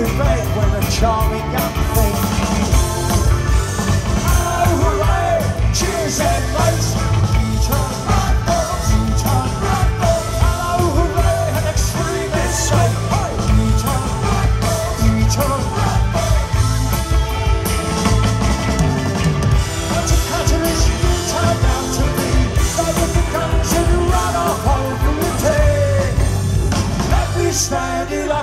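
Live rock band playing loud and steady: electric guitars, bass, drums and keyboard with a lead vocal singing over them, as heard by a phone microphone out in the crowd in front of a festival PA.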